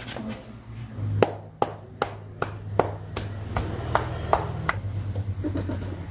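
Hand patting an elderly person's back while holding her in an embrace: about ten sharp pats at an even pace, a little over two a second, over a steady low hum.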